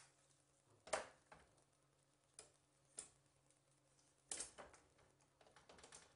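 Cast-iron stovetop toastie maker being turned and opened over a gas burner: a few short metal clicks and clacks from its plates and hinged handles. The loudest comes about a second in, with a quick cluster a little after four seconds and lighter ones near the end.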